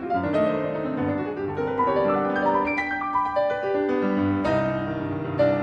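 Piano music in a classical style: a melody of held notes over chords.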